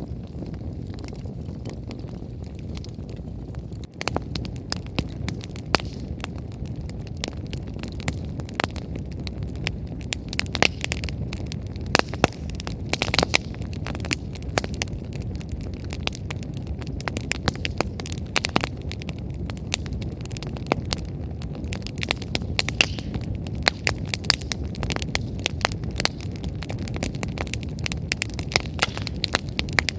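Wood bonfire crackling, with frequent sharp pops from the burning firewood over a steady low rumble. The pops come thicker after a brief drop in level about four seconds in.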